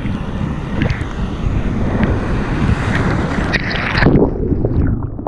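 Ocean surf washing and breaking around a water-level camera, with wind noise on its microphone and small splashes. About four seconds in a louder rush of whitewater comes, after which the sound turns muffled.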